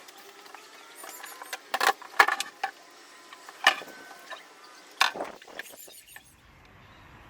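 Workshop handling noises: a handful of sharp clicks and clinks, some with brief ringing, spaced a second or so apart, with a faint low rumble coming in near the end.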